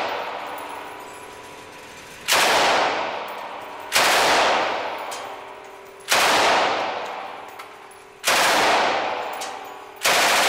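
Light machine gun fired in five short bursts about two seconds apart, each burst followed by a long echo that fades out in the enclosed indoor range.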